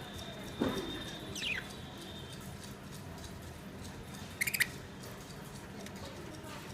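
Pet budgerigars chirping a few times: a short falling chirp about a second and a half in, and a quick run of high chirps about four and a half seconds in.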